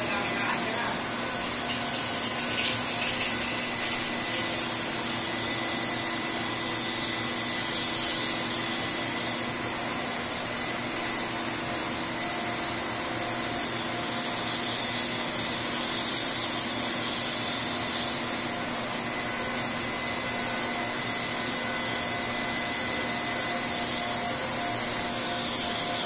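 Pressure washer running, its water jet hissing steadily against the coil fins of a split-type air conditioner's indoor unit. The hiss swells and eases a few times as the jet is moved across the fins, over a steady machine hum.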